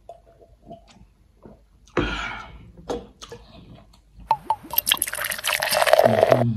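A few swallowing gulps, a brief sharp sound about two seconds in, then fizzy Fanta soda poured from the can into a glass, splashing and fizzing with many tiny pops for the last two seconds.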